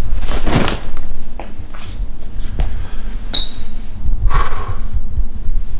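Clothes rustling as an armful of hoodies and jackets is handled and dropped in a pile, with two longer rustles and a few light knocks over a low rumble.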